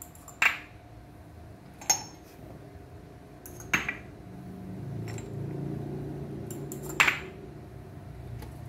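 Glass cupping cups clinking and knocking, four sharp clinks a second or more apart, with a low rumble in the middle.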